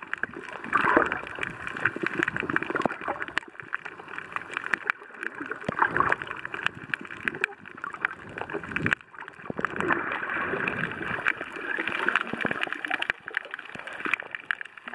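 Underwater bubbling and gurgling in uneven surges, picked up through an underwater camera, typical of a diver's breathing bubbles and water moving around the housing.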